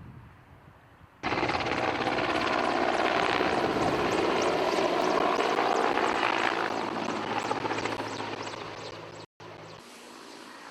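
Helicopter flying close by, a loud steady rotor and engine sound with fast blade flutter that starts abruptly about a second in and fades away in the last few seconds.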